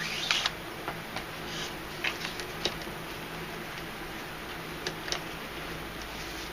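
Scattered light clicks and rustles of paracord being handled and pulled tight while tying a bracelet, busiest in the first three seconds and twice more around five seconds in, over a faint steady hum.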